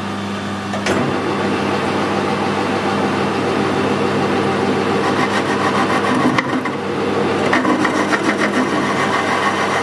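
Metal lathe running with a steady motor and gear hum, a long bar turning in a fixed steady. From about seven and a half seconds in, a rougher, quickly pulsing noise joins as the tool starts facing the end of the bar.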